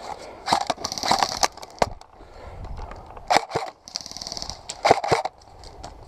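Airsoft guns firing: a string of sharp single cracks of varying loudness, with two short rapid bursts about one and four seconds in.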